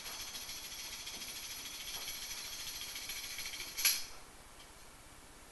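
A jingling percussion instrument is shaken rapidly for about four seconds and ends with one sharp hit, then the sound stops.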